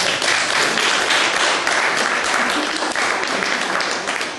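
Applause from a small group of onlookers: dense, steady clapping.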